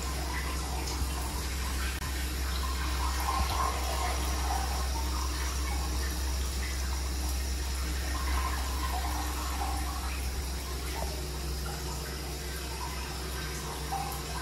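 Hot-spring water running steadily from a spout into an indoor bath, a continuous splashing with a low hum underneath.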